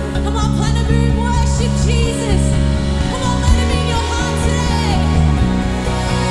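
Worship band music with a prominent electric bass line holding and changing low notes, under a gliding lead melody.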